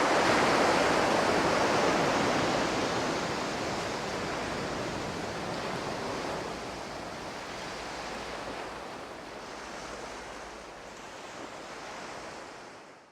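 Ocean surf washing onto the beach, a steady rush of waves that slowly grows quieter and fades out.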